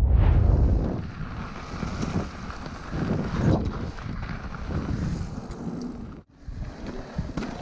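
Wind buffeting the camera microphone, mixed with the rumble and rattle of a mountain bike riding over a dirt trail. It is loudest in the first second and drops out briefly about six seconds in.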